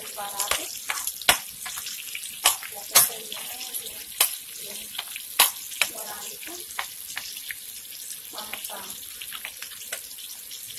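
Chorizo frying in oil in a nonstick skillet: a steady sizzle, with frequent sharp clicks as a metal spoon stirs the meat against the pan.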